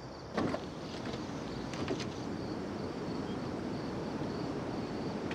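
Car doors being opened as several people get out of a parked sedan: a loud clack about half a second in, then a few more latch clicks and knocks around one to two seconds. Under it runs a steady low rumble with faint high chirping.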